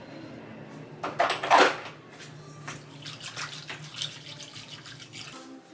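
Wire whisk beating a thin batter in a stainless steel bowl: liquid sloshing and swishing, loudest about a second in, then quicker, lighter strokes.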